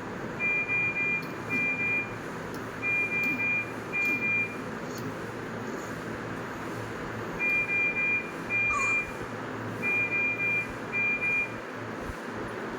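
Electronic alarm of a bedside patient monitor: one high-pitched beep repeated in short runs, with a pause of about three seconds in the middle, over a steady background hiss.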